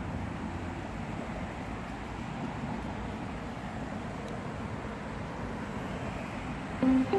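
Steady low outdoor rumble of distant road traffic, with no distinct events. Background music comes in near the end.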